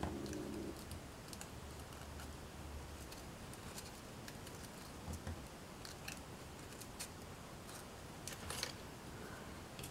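Faint, scattered small clicks and taps of hands handling small foam craft pieces and pins on a cutting mat. A background music track ends within the first second.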